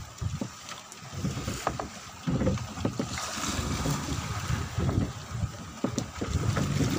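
Gusty wind rumbling on the microphone over a choppy sea aboard a small fishing boat, with a few sharp knocks.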